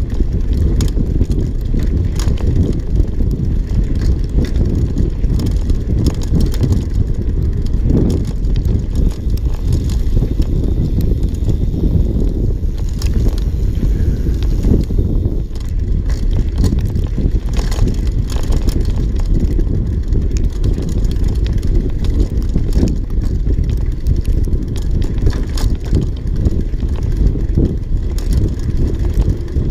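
Mountain bike riding fast down a dirt trail: a continuous rumble of tyres on dirt and wind on the microphone, with frequent clicks and rattles from the bike over bumps.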